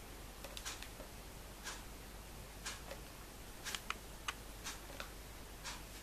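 BaByliss PRO hair crimper clamping strands of hair: faint short clicks and crackles, about one a second, with a quick cluster of three near the middle.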